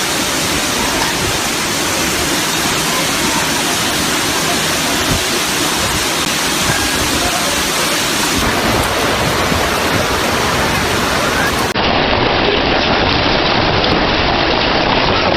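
Storm downpour: a loud, dense, steady hiss of heavy precipitation and rushing water, changing abruptly twice where separate clips are spliced together.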